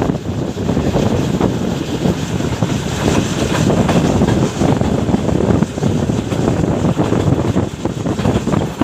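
Pak Business Express passenger train running at speed, heard from aboard as a dense rumble with irregular knocks from the track, and wind rushing on the microphone.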